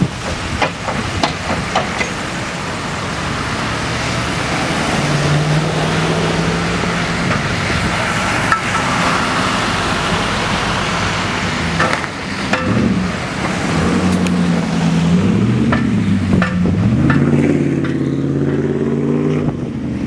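Road traffic on a wet, slushy street: tyre hiss and vehicle engines, with an engine's pitch rising and falling over the last few seconds. Scattered sharp clicks and knocks.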